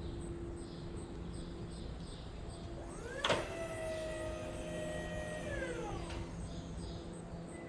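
A motor speeds up with a click about three seconds in, runs at a steady pitch for about two seconds, then winds down, over a low steady hum.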